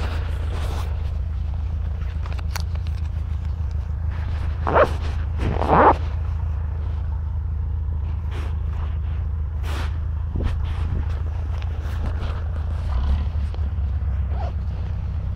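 A steady low engine drone, with a few brief rustling and scraping noises over it, two of them louder about five and six seconds in.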